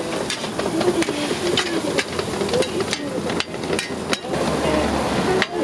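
Metal cooking utensils knocking and scraping on a hot griddle at irregular intervals, several clinks a second, over a steady sizzle of food frying.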